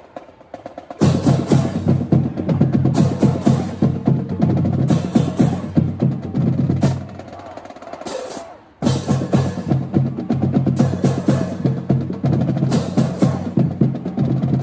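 Marching band drums and crash cymbals playing a loud, fast cadence. It starts about a second in, drops off for a moment a little past the middle, then comes back in hard.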